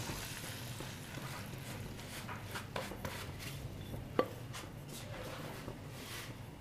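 Faint scraping of a silicone spatula wiping batter out of a bowl into a karahi, with a few light clicks and taps, the sharpest about four seconds in.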